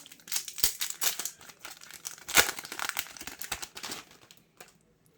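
Yu-Gi-Oh! booster pack wrapper being crinkled and torn open: a dense run of crackles and rips, loudest about two and a half seconds in, dying away near the end.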